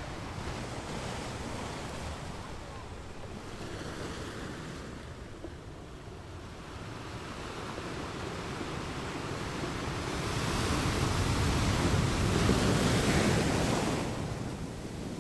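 A rushing noise that swells louder about ten seconds in and dips sharply near the end.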